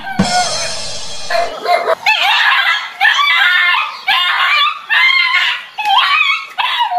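Small dog barking and yelping at a stuffed toy tiger it is fighting, with high, strained barks repeating about once a second.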